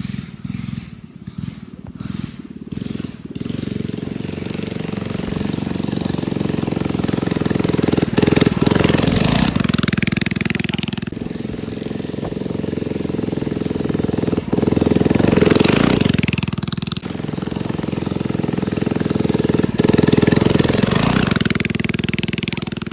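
Small mini bike engine running under throttle. It is choppy for the first few seconds, then swells louder three times and drops back between.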